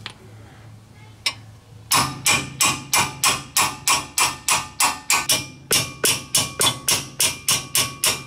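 Hammer striking the steel front brake hardware (rotor, caliper bracket and the wrench on its bolt) in a steady run of ringing metal blows, about three a second. It starts about two seconds in, with a brief break in the middle, and is done to knock the rusted rotor and hardware loose.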